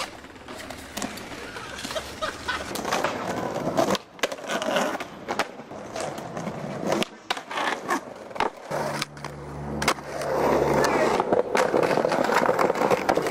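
Skateboard on paving stone and concrete: wheels rolling, with repeated sharp pops and clacks of the board's tail and wheels hitting the ground as tricks are tried. Near the end comes loud, steady wheel noise of the board rolling fast over pavement.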